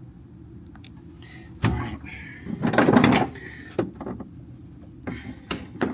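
Handling noises from taking apart a UTV's center console: a thump, then a louder scraping clatter, followed by a few light clicks and knocks.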